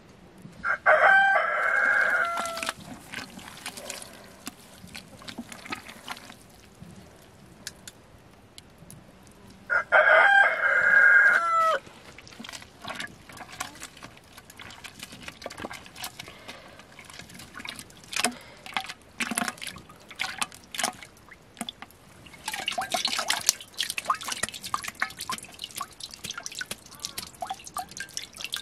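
A rooster crows twice, about nine seconds apart; the two crows are the loudest sounds. Later come wet splashing and dripping as a lump of fresh butter is scooped out of the buttermilk in a wooden churn.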